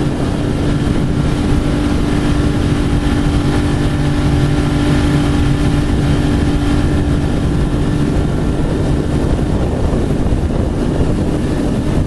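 Twin-hull ski boat's motor running steadily: an even drone with a constant low tone under a wide rushing noise.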